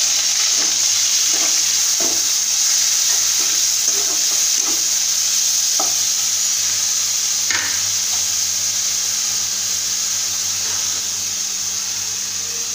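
Grated onion sizzling steadily in hot oil in a kadai, with a spatula scraping and stirring it through the pan every second or so.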